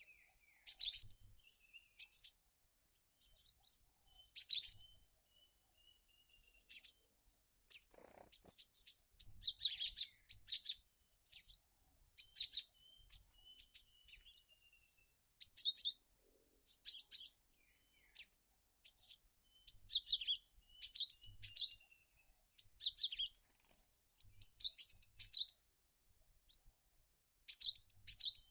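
Cinereous tits (gelatik batu) calling: groups of sharp, high chirps every second or two, with a thin falling whistle between the groups.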